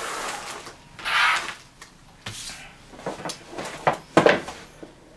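Clear plastic packaging crinkling as it is handled, a few times in the first couple of seconds. Then a quick series of sharp clicks and knocks as the action camera's plastic waterproof housing is handled.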